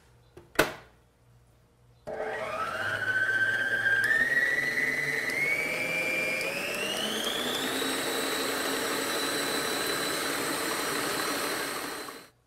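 Electric stand mixer with a wire whisk beating eggs. A sharp click comes about half a second in. The motor starts about two seconds in, its whine rising in pitch in steps as it speeds up, then runs steady and stops just before the end.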